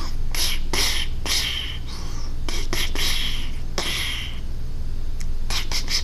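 A person making breathy, hissing mouth sound effects for a toy gun: short blasts in irregular runs. A steady low hum runs underneath.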